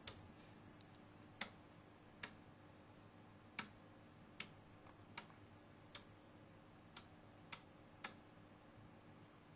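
Rotary time-base switch on an oscilloscope being turned step by step: about nine sharp detent clicks, spaced unevenly around a second apart.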